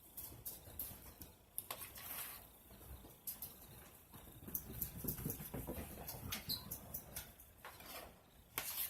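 Faint, irregular scrapes, clicks and taps of a spoon scooping mashed deviled-egg filling out of a bowl and into the egg white halves.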